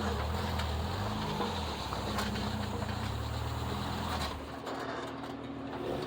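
Off-road vehicle engine running at low revs, its note rising and easing in steps, with a few sharp knocks. The sound gets quieter about four seconds in.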